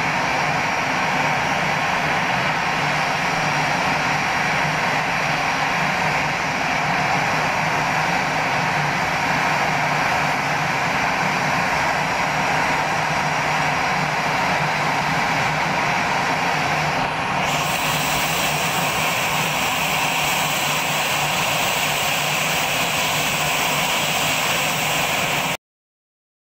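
Airbus A320 jet engines running at idle as the airliner taxis in: a steady loud rush with a low hum beneath it. About 17 seconds in it turns brighter and hissier, and near the end it cuts off abruptly.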